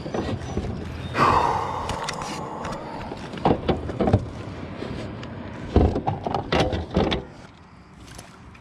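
Gear being handled on a plastic fishing kayak's deck: a longer rush of noise about a second in, then several sharp hard knocks in two clusters.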